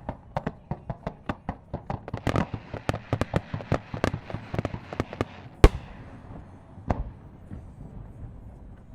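Fireworks shells bursting in a rapid barrage of booms, about three to four a second, with the single loudest bang a little past halfway; the bursts then thin out into fainter crackling.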